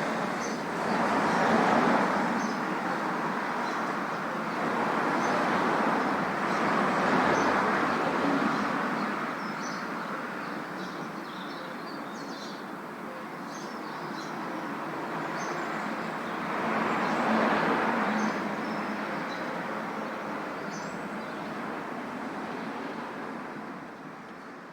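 Vehicle noise that swells and eases several times, with scattered short high chirps above it. It fades out near the end.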